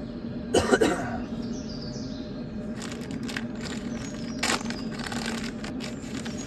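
A short cough-like burst about half a second in, over a steady low hum, with a few faint bird chirps and scattered light clicks.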